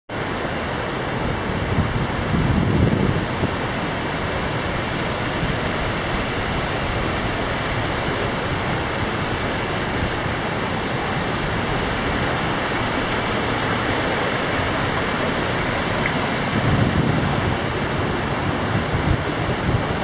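Steady rushing of a rocky mountain river's white water, an even, unbroken wash of noise, with two brief low rumbles, about two seconds in and again near the end.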